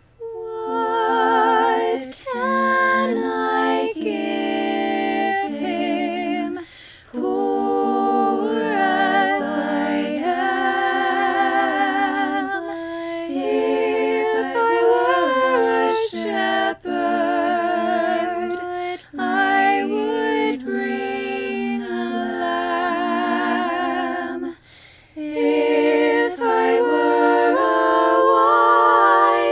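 Solo voice singing a carol unaccompanied, held notes with marked vibrato, in phrases separated by short breaths.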